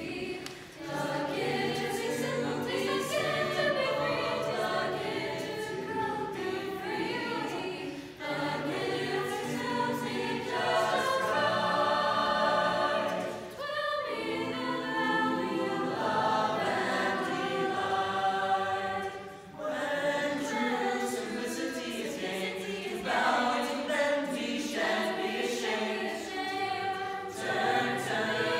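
Mixed-voice choir singing in harmony, holding chords in phrases with short breaks between them about 8, 14 and 19 seconds in.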